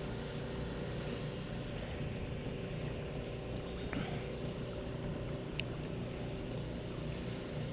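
Steady low rumble of a small pedal-driven boat under way on floodwater, with a faint steady hum and a light tick or two.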